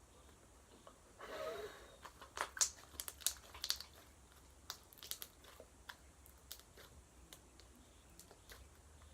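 Homemade slime being squeezed and worked by hand: a brief rustle, then a run of wet crackling clicks for about two seconds, thinning to scattered clicks.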